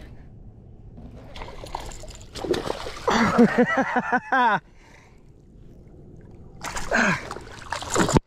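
A hooked bass splashing and thrashing at the water's surface as it is fought toward the kayak, in uneven bursts. A pitched, quickly wavering sound comes in about midway.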